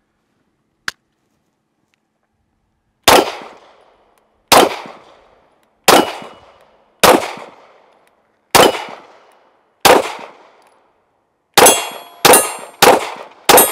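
Taurus GX4 XL 9mm pistol firing ten shots: six slow, evenly spaced shots, then four quicker ones near the end. The steel targets ring after the later hits.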